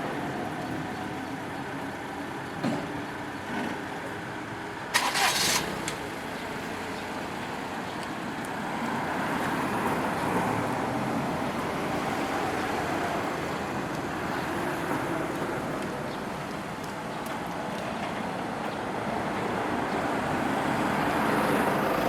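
Road vehicles passing over a railway level crossing, their engine and tyre noise swelling and fading, with a brief loud hiss about five seconds in.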